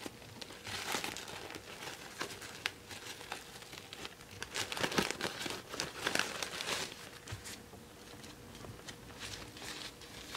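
Hands handling a fashion doll: irregular rustling and crinkling of its dress fabric and hair, busiest in the middle.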